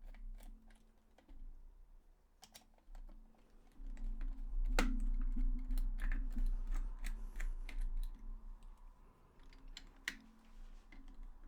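Irregular plastic clicks and taps from handling a DualShock 4 controller while opening its shell, with a sharp louder click about five seconds in and another about ten seconds in.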